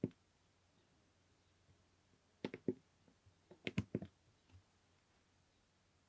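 Scattered sharp clicks over a quiet background: one at the very start, three in quick succession about two and a half seconds in, and a quicker cluster of several more a second later.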